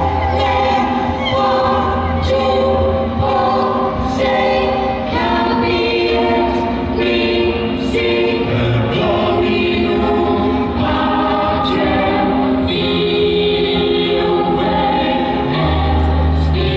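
Live band with keyboards and a choir playing a slow, sustained passage, the choir singing over held chords. Deep bass notes come in near the start and again near the end, with a few brief cymbal strokes between.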